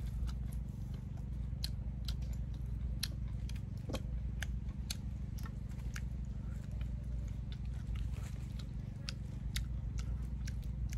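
Close-up mouth sounds of a person chewing balut: scattered wet clicks and smacks, one or two a second, over a steady low hum.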